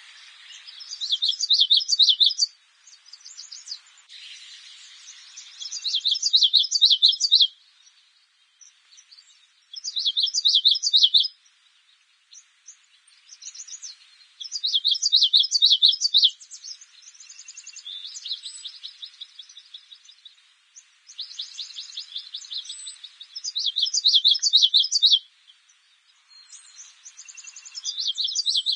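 Small bird singing in repeated phrases of rapid, high chirping trills, about seven phrases a few seconds apart with short pauses between.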